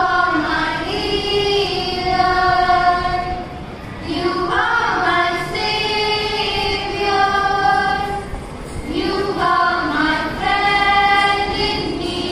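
A choir of schoolgirls singing a prayer song. There are three sung phrases of long held notes, with short breaks between them.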